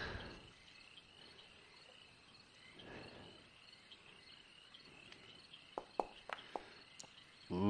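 Faint, steady insect chirping. About six seconds in, a short run of sharp clicks from a d20 dice roll.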